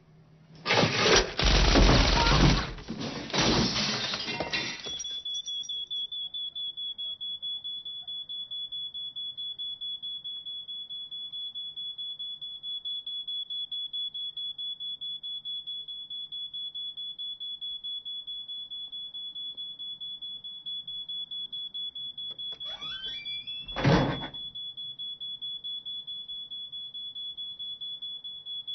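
A burst of automatic fire from a suppressed submachine gun, about four seconds of rapid shots, followed by a high, rapidly pulsing electronic beep of the smoke-alarm kind that runs on steadily. About 24 seconds in there is a single sharp thud.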